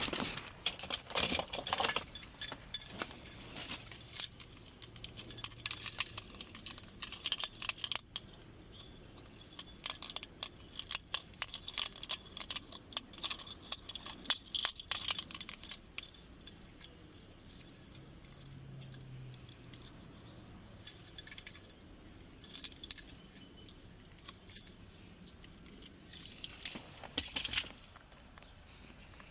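Keys or metal gear on a walking police officer's belt jingling in short bursts with his steps, with small clicks between the bursts.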